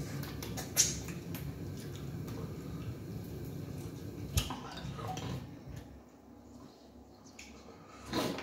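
Close-miked eating sounds: chewing and wet mouth smacks as fufu and fish in light soup are eaten by hand, with a sharp click about a second in and another a little after four seconds. It grows quieter after about six seconds.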